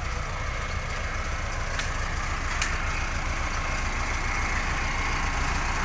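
Mahindra Arjun Novo 605 tractor's diesel engine idling steadily with an even low pulsing rumble.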